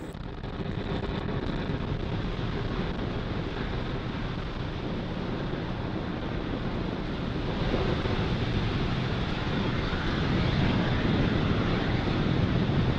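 Falcon 9 first stage's nine Merlin 1D engines firing during ascent, heard as a steady rocket rumble that grows a little louder about eight seconds in.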